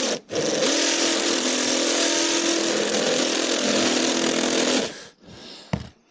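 Power drill with a step drill bit cutting into the steel body panel of a van: a brief blip of the trigger, then it runs steadily for about four and a half seconds and stops, with a short whirr and a click near the end. The hole is being widened a little at a time toward about 6.5 mm.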